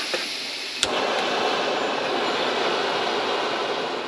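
Fire-Maple canister gas stove being lit: gas hissing from the opened valve, a sharp ignition click about a second in, then the burner catching and running with a steady rushing noise.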